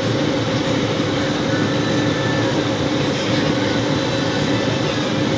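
Steady running noise of a moving vehicle, an even rush with a faint steady hum in it.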